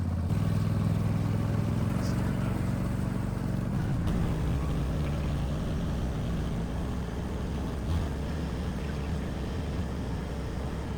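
Argo eight-wheel amphibious ATV engine running steadily while driving, its note shifting about four seconds in.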